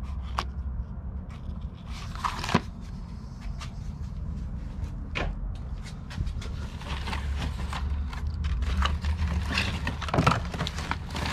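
Hands rummaging through papers and objects in a cardboard box: paper rustling with scattered clicks and knocks, over a steady low hum.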